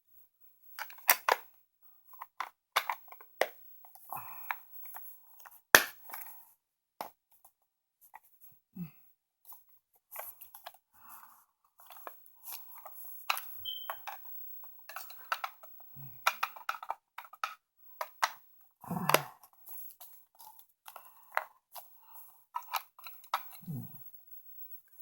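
A multimeter's plastic case and battery being handled and fitted back together: irregular clicks, taps and light rattles, with a few dull knocks.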